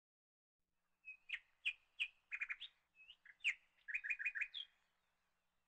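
A small bird chirping: a string of short, high chirps, some in quick runs of three or four, starting about a second in and stopping shortly before the end.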